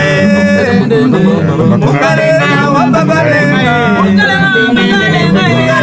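Gospel song: a male lead voice sings with a choir over a steady instrumental backing.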